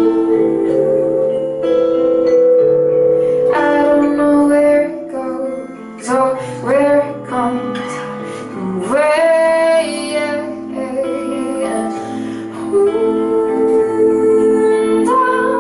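Live music: acoustic guitar and vibraphone playing a slow song. A woman's voice sings a sustained, gliding line through the middle, from about four to ten seconds in.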